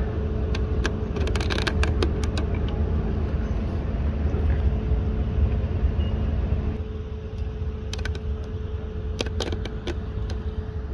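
Idling vehicle engines at a roadside stop: a steady low rumble with a constant droning hum, a little quieter about seven seconds in. Scattered sharp clicks and knocks, several of them near the end.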